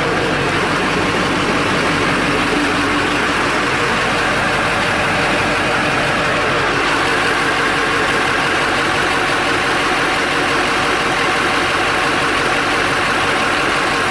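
Duramax V8 turbo-diesel engine idling steadily, heard from underneath the truck, with the transmission running so the new cooler lines are under pressure.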